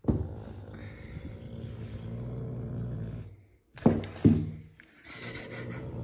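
Caracal growling in a low, steady rumble while it plays rough. About four seconds in come two sudden loud outbursts close together, after which the growl goes on.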